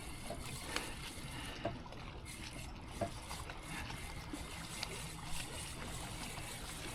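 Water lapping and trickling against a small boat's hull, a low steady wash with a few faint knocks.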